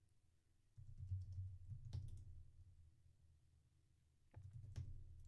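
A few faint keystrokes on a computer keyboard, sharp clicks about two seconds in and again near the end, over a low rumble.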